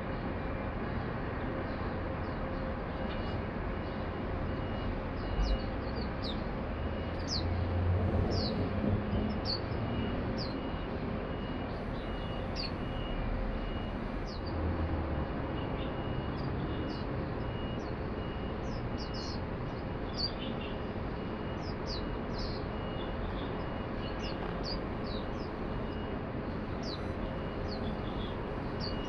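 Swinhoe's white-eyes calling: many thin, high, downward-slurred chirps scattered through, over a steady hum of city noise. A low rumble swells about eight seconds in.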